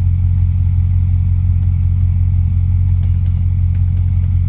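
2003 Chevrolet Silverado's engine idling steadily with its engine-driven air-suspension compressor running, a constant low drone. A few sharp clicks come in over the last second and a half.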